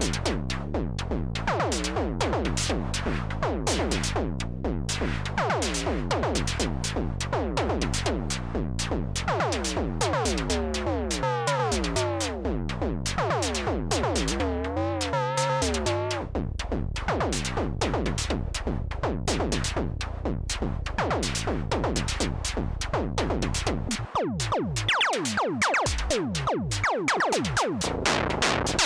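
Behringer SY-1, an analog drum synthesizer cloned from the Pearl Syncussion, playing a fast run of electronic drum hits, each a tone that drops in pitch, dry with no effects. In the middle some hits wobble up and down in pitch, and in the last few seconds the hits turn thinner and higher, with less bass.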